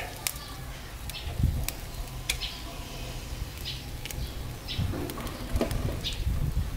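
Charcoal grill under a whole chicken crackling, with scattered sharp pops, and birds chirping in the background.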